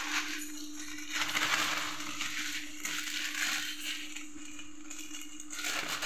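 Dry vermicelli pouring from a plastic packet into an empty pan: a dry, rustling hiss of thin noodle strands landing, coming in several pours as the packet is shaken.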